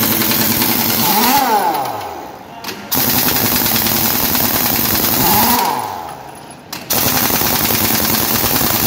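Pneumatic impact wrench hammering on the wheel nuts of a truck's rear wheel, in three long runs. After the first two runs the trigger is let go and the motor's whine falls away as it spins down; the third run starts about seven seconds in.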